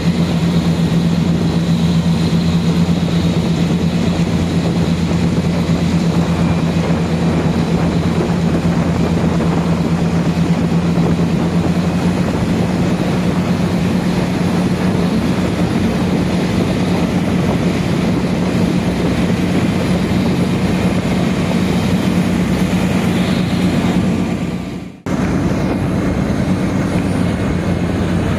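Airport ground vehicle driving, its engine giving a steady low drone under dense wind and road noise. The sound drops out briefly near the end, then resumes.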